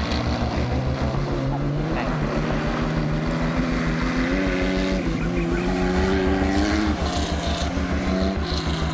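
Classic Porsche 911 rally car's air-cooled flat-six engine running under way with an even low throb. Its pitch holds, steps up a couple of times, then drops back twice near the end as the revs change.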